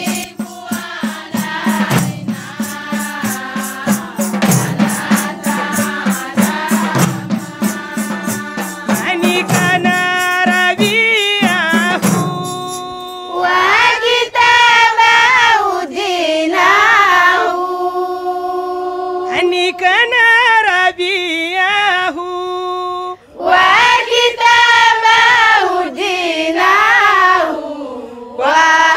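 Women's choir singing a religious song to a fast, even beat of hand-held frame drums, tambourines and hand claps. About 13 seconds in the percussion stops and the voices carry on unaccompanied, with a short break near the end before the singing resumes.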